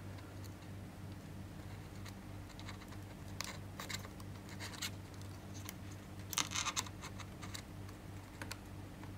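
Faint clicks and scratches of fingers handling an opened iPhone 7 Plus and pressing its flex-cable connectors onto the logic board, with a cluster of louder clicks about six and a half seconds in. A steady low electrical hum runs underneath.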